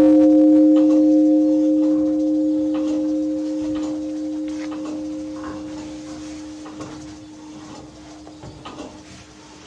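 Church bells dying away after the ringing stops: a few steady humming tones fade slowly over several seconds, with faint scattered clicks.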